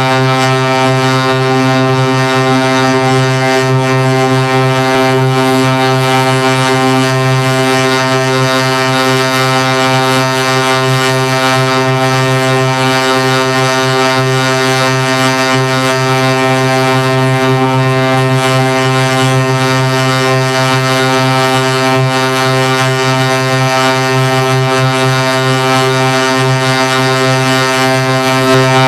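A single droning tone held at one low pitch, rich in overtones like a horn, with a faint hiss on top; it never changes.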